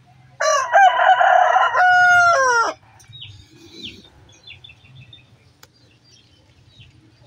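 Rooster crowing once, loud and close, about half a second in. The crow lasts about two and a half seconds and drops in pitch at its end.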